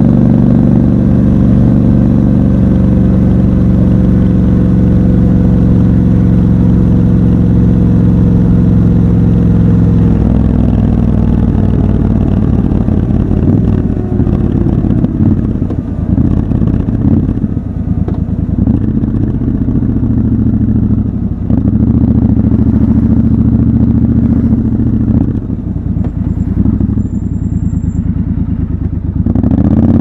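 Triumph Scrambler 1200 XC's parallel-twin engine, raw and close. It runs steadily at cruising speed for about ten seconds. Then the throttle closes and the note rises and falls repeatedly as the bike slows in traffic, with a brief high whistle near the end and the engine picking up again at the very end.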